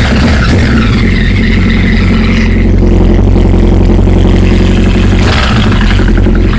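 2008 Honda CBR1000RR's inline-four engine running with a loud aftermarket-style exhaust, steady through the middle, with a rougher, noisier stretch at the start and again near the end. The bike has an intermittent heavy clicking/clacking that began after a thud under hard acceleration.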